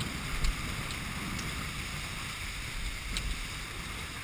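Water rushing and spraying along the hull of a Tempo scow sailing dinghy heeled over at speed, with wind on the microphone. It is a steady hiss and rumble, with a couple of light knocks.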